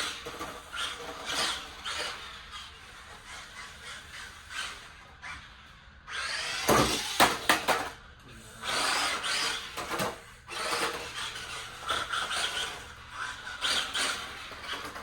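Small RC drift car driving: its electric motor whines in short bursts, rising and falling, while the tyres squeal and scrub as it slides. There are a few sharp knocks about seven seconds in.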